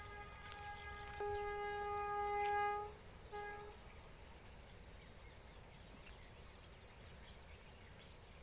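A long, steady, single-pitched horn-like blast that gets louder about a second in and cuts off near three seconds, followed by a short second blast, over faint bird chirps.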